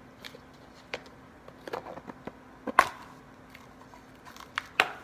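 Plastic ice-cube tray and its snap-on seal being handled and pried apart: scattered sharp plastic clicks and taps, the loudest a little under three seconds in.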